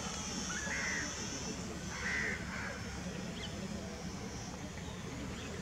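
High-pitched whine of a small electric RC warbird's motor and propeller passing overhead, fading after about a second and a half. Birds call several times with short, hooked cries, the loudest about two seconds in.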